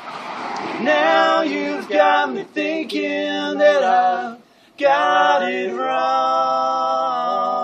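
A small group of men singing together in close harmony, a capella-style. The voices break off briefly about four and a half seconds in, then come back on one long held chord.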